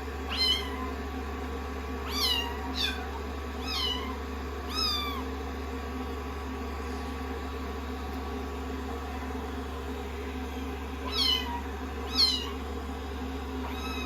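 Kittens mewing in short, high, falling cries, about seven in all with a long gap in the middle, over the steady hum of a hair dryer running.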